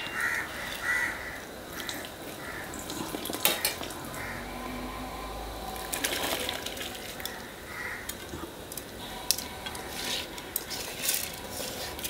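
Soaked basmati rice being tipped from an aluminium bowl into a large pot of boiling water. A metal slotted ladle scrapes and clinks against the bowl as the rice slides and splashes in, over the pot's bubbling.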